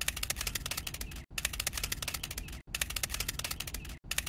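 Rapid, even mechanical clicking from a miniature grape-juice press's turning mechanism, cutting out briefly about every second and a half.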